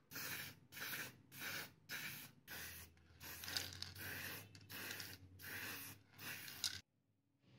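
Aerosol spray-paint can hissing in quick short bursts, about two a second, then cutting off abruptly near the end.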